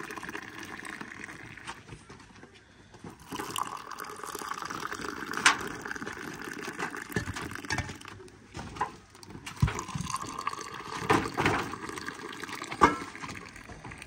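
Tea being poured from a metal teapot into small glasses, in several pours of a few seconds each with short breaks between, and a few sharp clinks.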